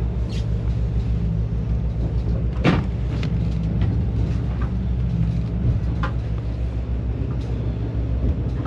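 Boat engine running steadily with a low hum, with a single sharp knock about two and a half seconds in and a few faint clicks.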